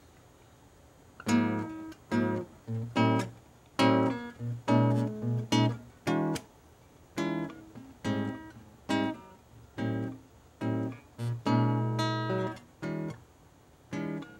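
Acoustic guitar strumming short, clipped chords with brief gaps between them, beginning about a second in: the instrumental intro of an MPB song, before the vocal comes in.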